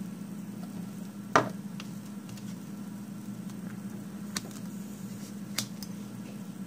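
Small handling sounds of nail-stamping tools and a glass polish bottle on a table: one sharp click about a second and a half in, then two fainter ticks later, over a steady low hum.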